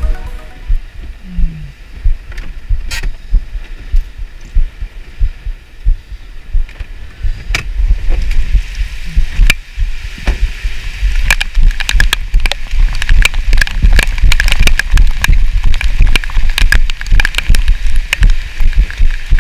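Wind buffeting the microphone with a heavy low rumble, under a patter of sharp taps that thickens and grows louder about eight seconds in.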